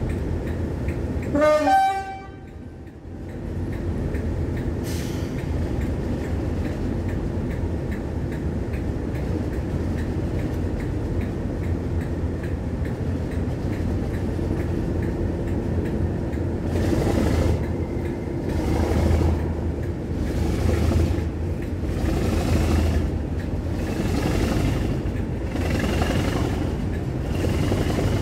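A short toot on the horn of Class 37 diesel locomotive 37674, then the steady rumble of the English Electric V12 diesel and the carriages as the train pulls away. About halfway through, the wheels begin clicking over rail joints about once a second.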